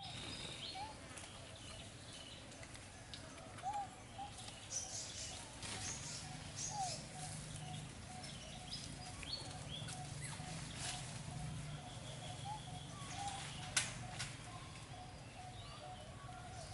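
Birds calling: a steady run of short repeated notes with higher chirps above it. Scattered rustles and clicks come through, the loudest a single sharp click near the end.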